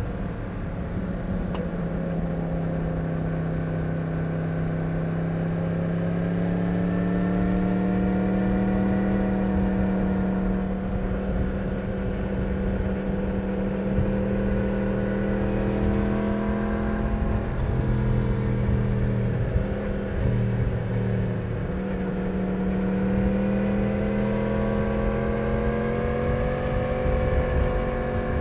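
Stock Yamaha MT-10's crossplane inline-four engine and exhaust pulling steadily on the move. The revs ease off in the first couple of seconds, climb slowly, dip a little past the middle and climb again near the end.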